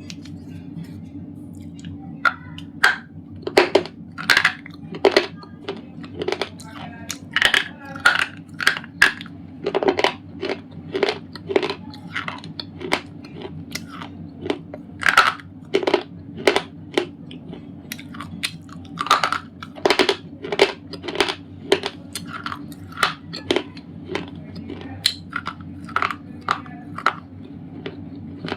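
Thick white slate pencils being bitten and chewed close to the microphone: irregular sharp, dry crunches, a few each second, over a steady low hum.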